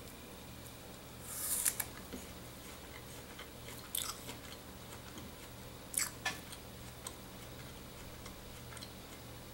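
Biting into a slice of raw quince and chewing it: a crisp crunch about a second and a half in, then a few sharper crunches around four and six seconds as the hard fruit is chewed.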